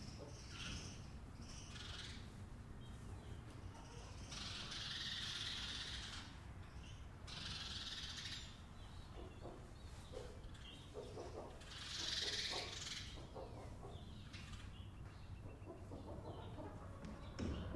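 Barn ambience with chickens: a steady low hum underneath, scattered short soft clucks, and three bursts of high-pitched noise of about a second each.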